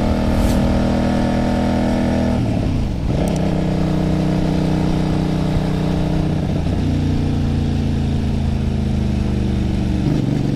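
Kasinski Mirage 250's V-twin engine running as the motorcycle is ridden along at road speed. The engine note drops and recovers twice, about two and a half and seven seconds in, and steps up again near the end.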